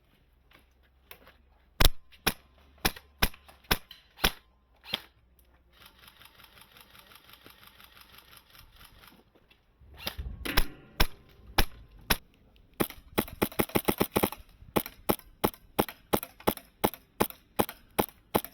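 Airsoft guns firing: single shots at first, about two a second, then a faint fast rattle. A rapid burst comes a little past the middle, followed by a steady run of single shots.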